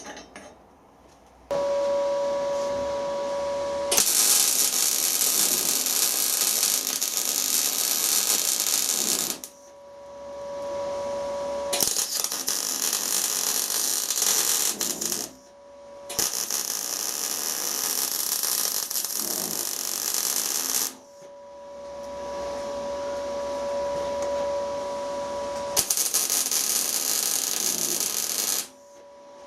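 MIG welder arc crackling in four runs of a few seconds each, welding nuts onto broken studs so the heat frees them. A steady whine sounds in the pauses between the runs.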